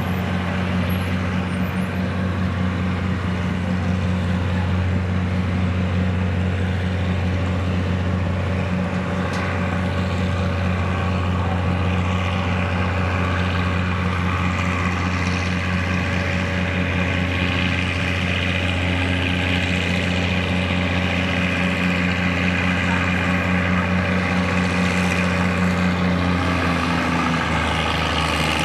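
Tractor engines idling steadily with a low drone, from an antique Oliver tractor and the pulling sled's tow rig. Near the end the engine note shifts as the Oliver throttles up to start its pull.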